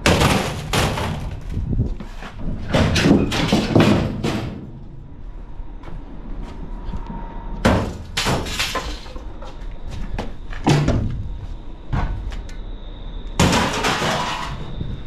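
Metal file cabinets being thrown out of a truck onto a scrap pile, landing with clanging metal impacts in about five clusters a few seconds apart.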